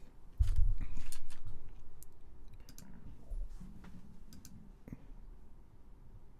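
Scattered clicks of a computer mouse and keyboard at a desk. About half a second in there is a louder low thud and rumble that lasts about a second.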